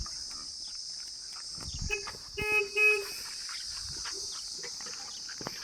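Two short, flat beeps of a vehicle horn, plus a fainter one just before them, about two to three seconds in. A steady high-pitched insect drone runs underneath.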